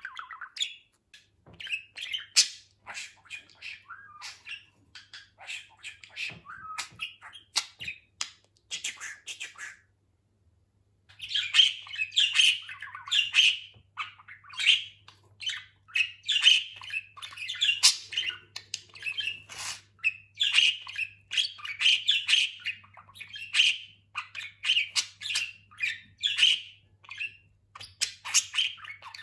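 A male budgerigar chattering and warbling: a rapid, continuous run of chirps, clicks and squawky notes. It breaks off for about a second around ten seconds in, then resumes more densely.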